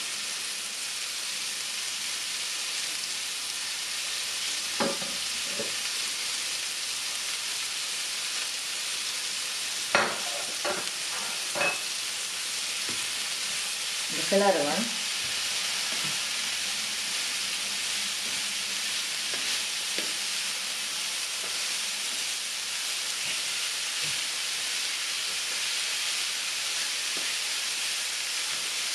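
Grated cauliflower and dry tuna flakes sizzling steadily in oil in a ceramic-coated frying pan while being stirred. A metal spatula scrapes and knocks against the pan a few times, loudest in a short clatter about fifteen seconds in.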